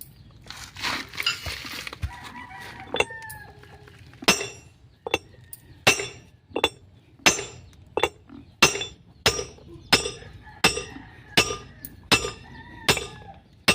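Hammer blows on metal, about three every two seconds, each with a short ringing, starting about four seconds in. A rooster crows in the background.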